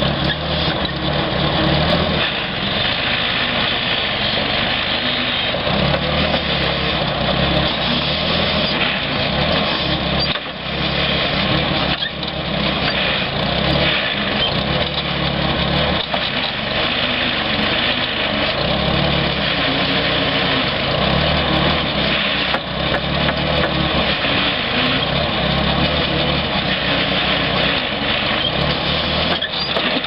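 Engine running steadily to power a homemade truck-mounted hydraulic backhoe as it digs. The engine's low note swells and eases every few seconds as the boom and bucket are worked.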